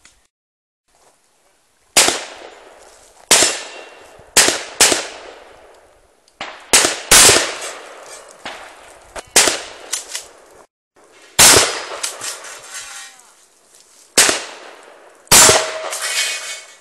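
A shouldered long gun fired at steel targets: about a dozen loud shots at uneven spacing, some in quick pairs, each followed by a fading echo.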